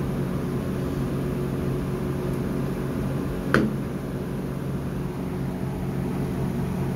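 Steady low mechanical hum with a hiss, broken once by a sharp click about three and a half seconds in.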